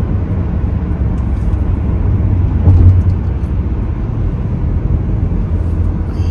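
A car driving along: a steady low rumble of road and engine noise.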